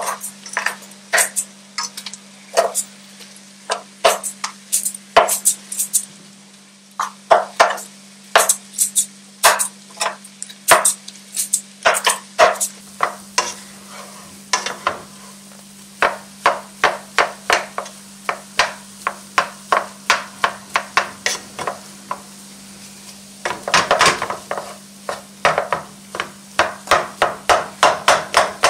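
Wooden spatula mashing boiled potatoes in a nonstick pot: repeated knocks and scrapes against the pot. They are irregular at first, then settle into about two strokes a second and quicken to about three a second near the end.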